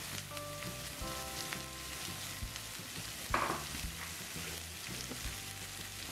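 Freshly added diced onion frying in hot oil in a nonstick pan, with a steady sizzle over the tempered mustard seeds, cumin and garlic. One brief louder noise comes about three seconds in.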